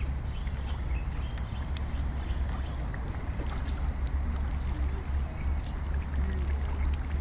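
Wind rumbling on the microphone, over faint scattered splashes and slurps from a crowd of fish jostling at the water's surface.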